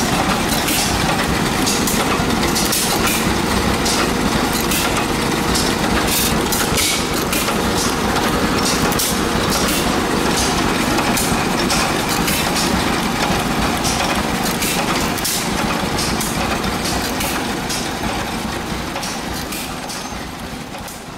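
Several antique single-cylinder stationary gas engines running together, a dense mechanical clatter with irregular sharp exhaust pops. The sound fades out near the end.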